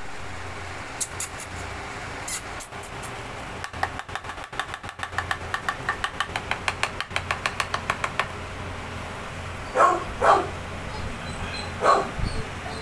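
Puppy giving three short yelps, two close together about ten seconds in and one near the end, over a steady low hum. Before them comes a quick run of clicks, about five a second.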